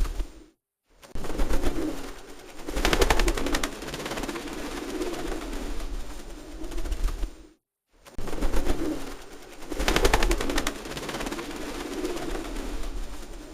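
Feral pigeons cooing, a deep rolling coo, broken twice by a loud burst of rapid clattering. Each burst is followed by steadier cooing, and there are two brief cuts to silence, with the same stretch of sound repeating about every seven seconds.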